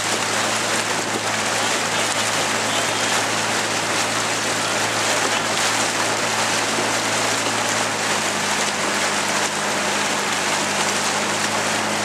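Steady rushing splash and wash of water as a dragon boat's crew paddles it along, with a constant low hum underneath.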